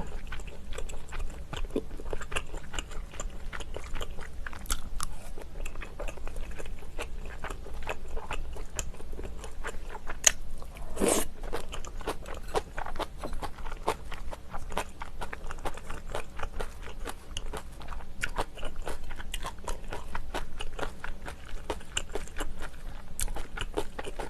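A person chewing food close to the microphone: continuous wet chewing with irregular crunches and mouth clicks, and one brief louder noise about eleven seconds in.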